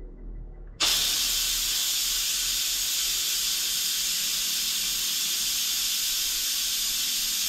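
Electric pressure cooker venting steam through its pressure-release valve: a loud, steady hiss that starts suddenly about a second in.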